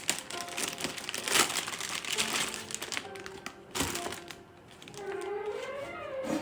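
Packaging crinkling and rustling as it is handled, with scattered clicks and sharper knocks. Faint music with gliding notes comes in about five seconds in.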